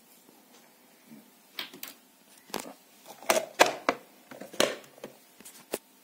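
Sharp plastic clicks and knocks, about half a dozen over a few seconds and loudest near the middle, as a spoon of ground coffee is tapped into a Shinestar drip coffee maker's filter basket and the hinged plastic lid over the filter is shut.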